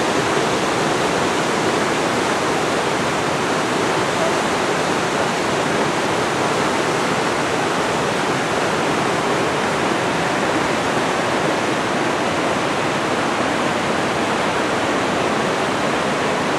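Whitewater rapids of a river slalom course rushing steadily.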